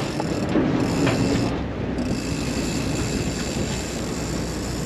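Big-game conventional lever-drag fishing reel being cranked against a hooked fish, its gears giving a steady mechanical whir, over a steady low drone from the boat.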